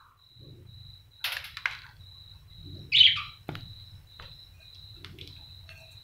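Budgerigars giving short scratchy chirps, with one louder squawk about halfway and a sharp click just after it. A faint steady high whine runs beneath.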